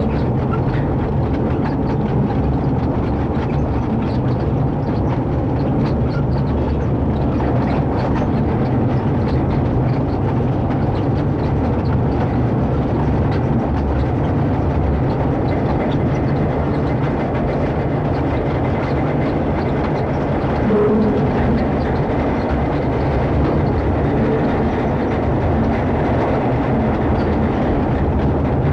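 Freight train rolling along the track: a steady, loud low rumble of wheels on rail, with faint clicking and rattling.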